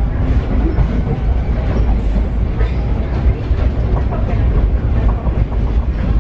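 Paris Metro Line 7bis train running on board, a steady low rumble with scattered clicks from the wheels and track.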